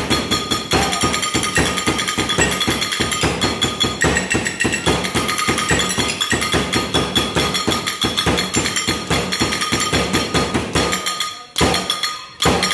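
Music with a fast, steady percussive beat; it drops out briefly near the end, then comes back.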